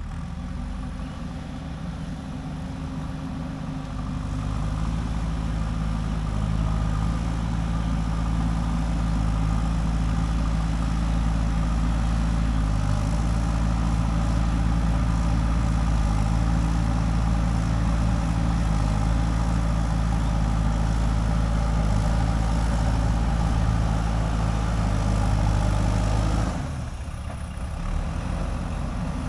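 JCB 3DX backhoe loader's diesel engine running, rising to a louder, heavier note a few seconds in as it works, then dropping back suddenly near the end.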